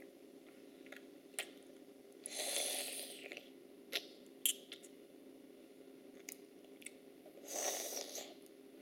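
A toddler slurping soup from a plastic spoon, twice, each slurp about a second long, with a few small clicks of the spoon in between.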